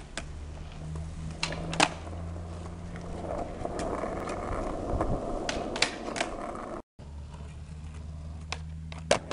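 Skateboard wheels rolling on asphalt, with sharp clacks of the board popping and landing about two seconds in and again near six seconds. After a cut near seven seconds the rolling resumes, with another loud clack near the end.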